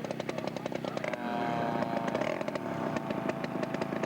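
Small two-stroke engines of large radio-control model airplanes running on the ground: one idles with a rapid, even popping, and about a second in a second engine running faster joins with a steady higher tone.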